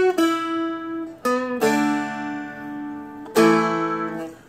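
Seagull Merlin, a four-string dulcimer-style acoustic guitar, played with a pick: a couple of single notes on the middle string, then a chord a little over a second and a half in and another about three and a half seconds in, each left ringing.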